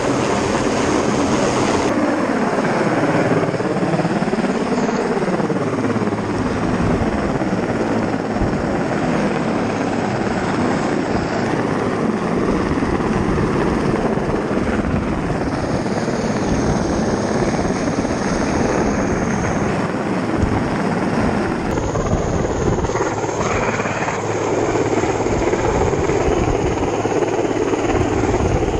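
Rescue helicopter hovering low overhead: a steady rotor and engine din mixed with the rush of rotor downwash. Its pitch wavers up and down for a few seconds near the start.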